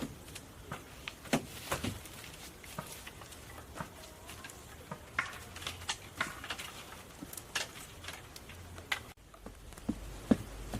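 Scattered light knocks, clicks and rustles of hand work with wood and grass building material, at irregular spacing.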